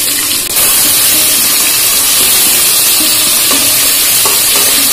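Potato chunks sizzling in hot oil in a wok, stirred with a metal spatula. The sizzle grows louder about half a second in and then holds steady.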